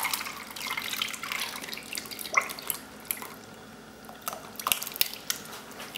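Thick, creamy ice cream custard base pouring from a bowl through a plastic strainer into a mixing bowl, a steady pour that thins out into scattered drips.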